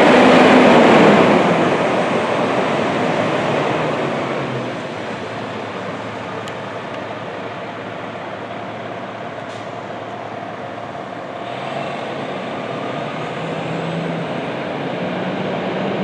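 Detroit Diesel Series 60 diesel engine of an MCI D4500 coach pulling away, loud at first and fading over the first few seconds as the coach moves off, then running on at a lower, steady level and getting a little louder again in the last few seconds.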